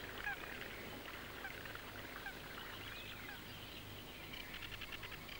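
Faint outdoor birdsong: scattered short chirps, with a quick ticking trill near the end, over a low steady hum.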